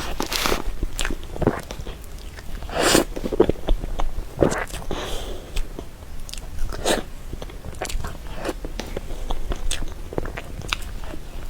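Close-miked sounds of someone eating soft cream cake: wet chewing and mouth noises in irregular short clicks.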